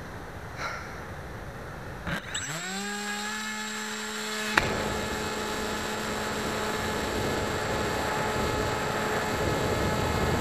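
Electric motor of a HobbyKing Breeze RC glider spinning up about two seconds in, its whine rising quickly and then holding a steady pitch, heard through the plane's onboard camera. A sharp knock about four and a half seconds in, then a steady rush of wind over the motor's whine as the plane flies.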